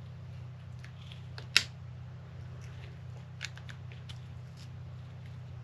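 Pliers and small metal parts clicking and ticking as a hinge pin is pressed into an RC car's rear hub: one sharp click about a second and a half in, a smaller one a couple of seconds later, and faint ticks between, over a steady low hum.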